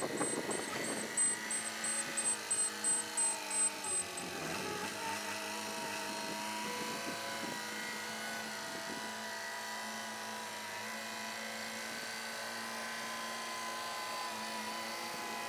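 Telehandler diesel engine running as the machine manoeuvres and handles a container body, its pitch drifting slightly. For about the first four seconds a rapid, regular high beeping pulses over it.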